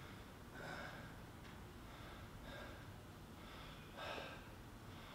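A man breathing hard through the mouth, about one breath a second, winded after taking bumps in wrestling practice.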